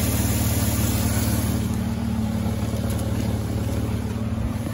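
Nissan Quest minivan engine idling steadily, heard close up from beneath the engine bay. The AC compressor pulley spins while its clutch stays disengaged, which the owner puts down to a faulty relay.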